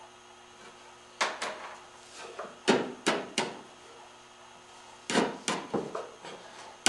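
Sharp wooden knocks and clacks as a board is handled and shifted inside a curly maple box case, in three short groups of two or three knocks each.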